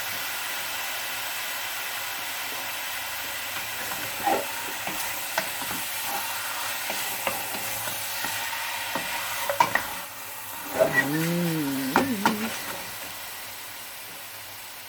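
Chicken pieces sizzling as they are sautéed in a pan with only a little oil, stirred with a utensil that clicks and scrapes against the pan now and then. The sizzle eases off somewhat near the end, and a short voice-like hum sounds about eleven seconds in.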